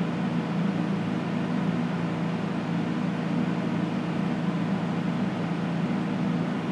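American Beauty 10505 resistance soldering unit humming steadily under power: current flows through the large plier electrodes clamped on a board standoff, heating it to melt the preformed solder rings.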